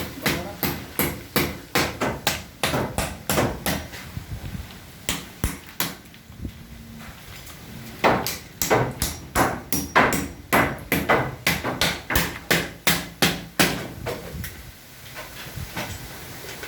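A hammer striking timber supports in rapid runs of blows, about three a second, knocking the props and formwork loose from under a concrete slab. The runs pause twice and die away near the end.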